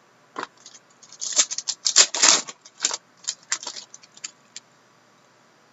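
Trading cards and their packaging being handled: a run of crisp crackles and clicks, densest about two seconds in, then thinning out.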